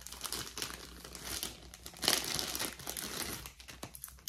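Packaging crinkling as it is handled and opened, in uneven rustles with the loudest flurry about two seconds in.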